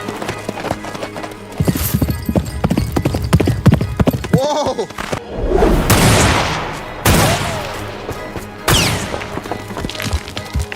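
Horse hooves clip-clopping and a horse whinnying about four seconds in, over background music, with a couple of sharp hits later on.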